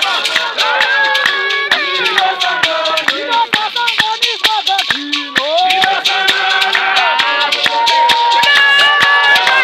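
Many voices singing together in chorus, kept in a steady beat by hand clapping and a shaken gourd rattle.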